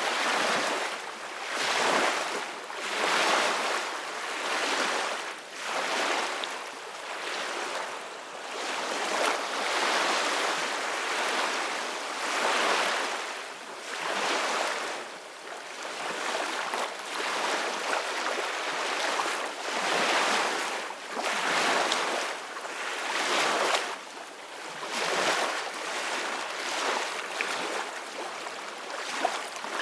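Gentle sea waves washing in, a rushing noise that swells and falls every second or two.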